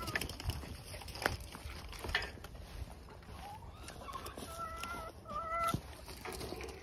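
Hens clucking in short, pitched calls, several in a row about two-thirds of the way through, with a few sharp knocks in between.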